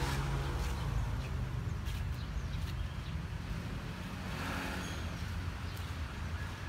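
Ford 3930 tractor's three-cylinder diesel engine idling, a steady low rumble.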